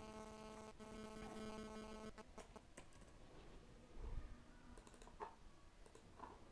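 Faint electrical hum, a steady stack of tones that cuts off suddenly about two seconds in, followed by a few soft computer keyboard and mouse clicks.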